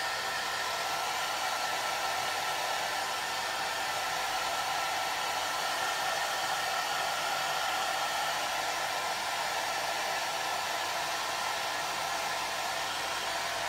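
Handheld hairdryer running steadily on its no-heat setting, drying a stained blood smear slide: an even rush of air with a faint high whine.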